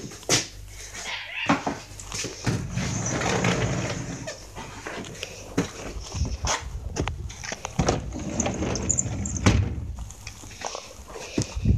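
Footsteps on a thin layer of snow, mixed with scattered sharp knocks and clicks, and a dog's noises.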